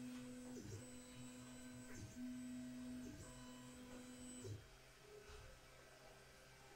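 Sculpfun S9 diode laser engraver's stepper motors humming a steady tone as the laser head traces the framing outline of the job. It runs in four straight moves with short breaks at the corners, then stops about four and a half seconds in.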